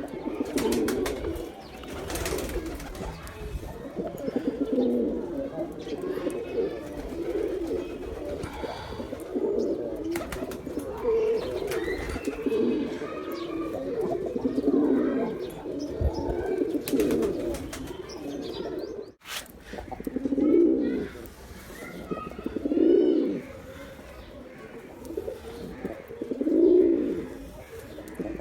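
Male domestic pigeons cooing: a dense run of overlapping low coos, then, after a brief break about two-thirds of the way through, four separate louder coo phrases a few seconds apart.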